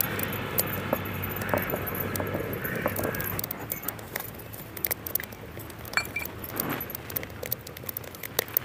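Stone roller grinding coriander seeds on a flat stone grinding slab (ammikkal), a gritty rolling scrape that stops about three seconds in. After that, scattered light scrapes and clinks as the ground powder is swept together by hand and scooped into a steel bowl.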